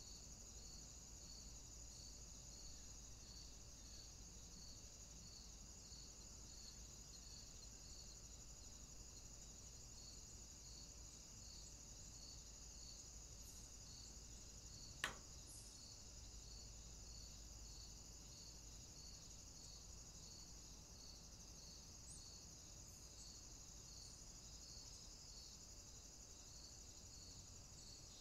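Faint, steady high-pitched insect chirring, with a soft pulse repeating about three times every two seconds. One sharp click about halfway through.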